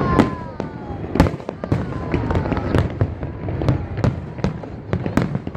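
Fireworks display: rapid bangs and crackles of bursting shells over a constant rumble, with a sharp louder bang about a second in. A few falling whistles sound in the first couple of seconds.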